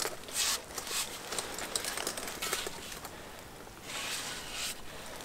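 Soft rustling and scuffing of camouflage clothing and backpack straps, with a few light clicks, as an elk antler is handled and turned over.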